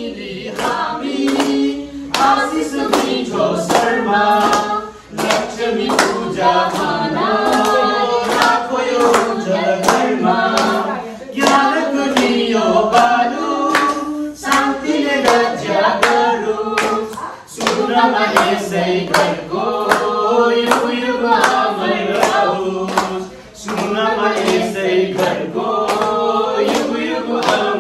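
A group singing a Nepali Deusi-Bhailo festival song together, kept in time by steady hand-clapping.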